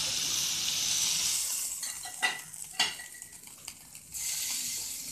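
A marinated chicken-and-spring-onion yakitori skewer sizzling in oil in a frying pan. The sizzle drops away for about two seconds while the skewer is handled, with two sharp knocks, then sizzles fully again near the end.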